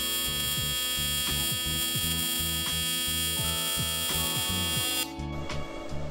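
AC TIG welding arc on thin aluminum, a steady high electric buzz, under background music with a beat; the arc buzz cuts off about five seconds in.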